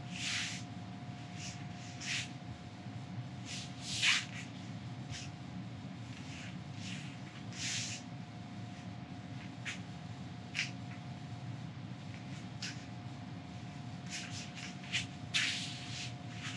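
A man's short, sharp breaths at irregular intervals, exertion breathing during a light-weight Turkish get-up, over a steady low hum.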